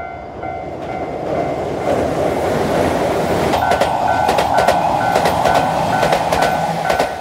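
A train rolling past, its rushing rumble building and then sharp wheel clicks over the rail joints from about halfway. Through it a bell rings steadily about twice a second.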